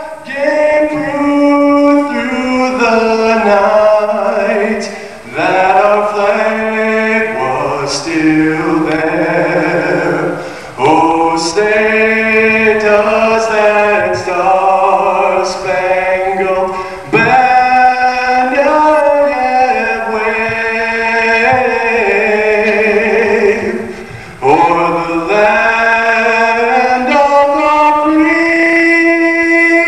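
A man singing solo into a microphone, unaccompanied, in slow phrases with long held notes and short breaks between phrases.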